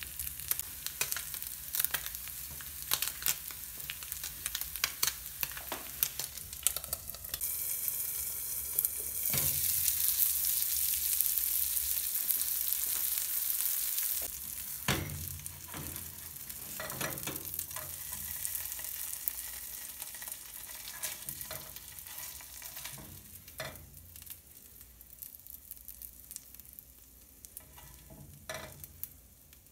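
Shredded chicken and melting cheese sizzling and crackling in a nonstick frying pan, the sizzle growing louder for several seconds in the middle, then dying down. In the second half a few separate knocks and scrapes come from a spatula working in the pan.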